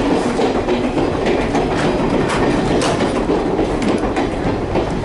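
Passenger train rolling along, heard from inside the coach: a steady rumble of the car with light clicks of the wheels over the rails.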